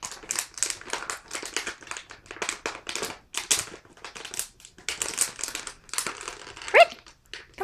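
Plastic water bottle crinkling and crackling in quick irregular bursts as a small dog chews it and pushes it about with its mouth. Near the end there is one short, loud, high squeak that rises and falls.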